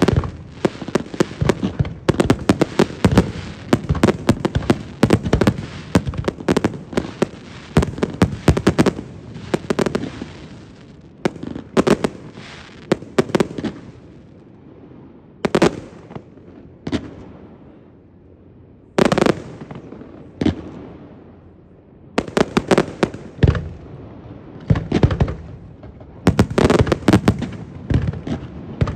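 Aerial fireworks display: a rapid stream of bangs and cracks from bursting shells. About midway it thins to a few separate booms, then dense volleys resume for the last several seconds.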